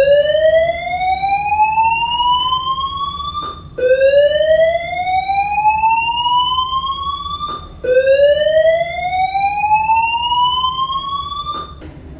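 Building voice-evacuation fire alarm sounding its whoop tone, the evacuation signal: three loud rising sweeps, each about four seconds long, climbing steadily in pitch and then starting again from the bottom.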